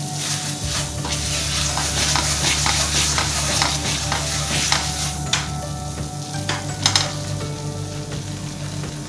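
Silicone spatula stirring and scraping water chestnut and rajgira flour in hot ghee in a nonstick pan, over a steady sizzle. The flour is roasted to a pinkish colour, done roasting. The scraping eases after about five seconds, with a couple of sharp knocks about seven seconds in.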